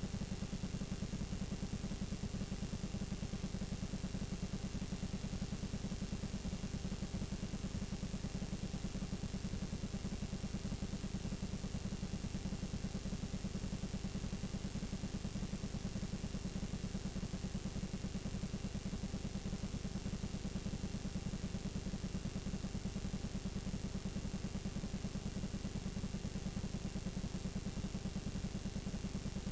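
Steady low buzz and hiss from a blank, unrecorded stretch of videotape playing back, with a thin high whine above it.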